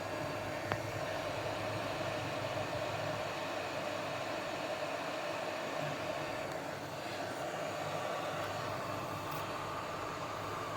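Hot air rework station blowing steadily on the laptop board: a rushing hiss over a fan hum whose tone shifts higher about seven seconds in. A small click sounds near the start.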